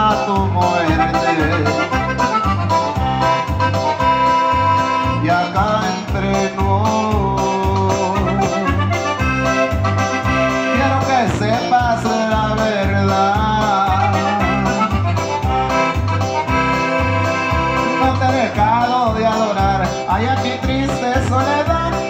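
Accordion-led norteño dance music with a steady bass beat.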